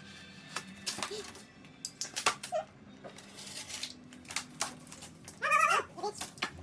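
Scattered knocks and taps of wood being handled and set in place, with a short wavering vocal cry near the end.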